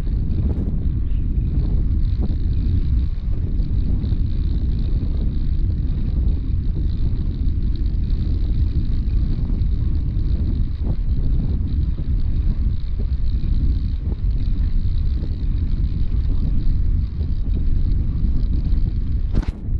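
Steady low rumble of wind buffeting the microphone and bicycle tyres rolling over a brick-paved towpath, with a faint hiss above it. A single sharp click comes near the end.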